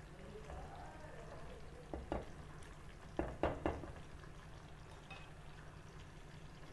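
A wooden spatula stirring thick, creamy paneer gravy as it simmers in a nonstick pan, with a few knocks and scrapes against the pan about two to four seconds in. A low, steady hum runs underneath.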